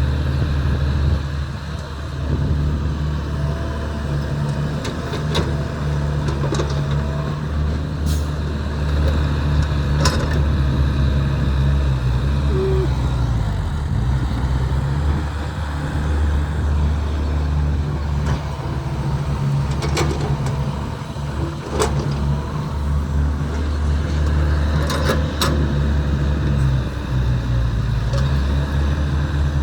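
Excavator's diesel engine running steadily under working load, with several sharp knocks scattered through, from the bucket and machinery at work.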